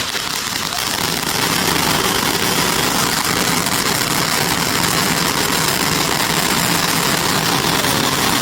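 A fountain firework spraying sparks with a steady, dense hiss.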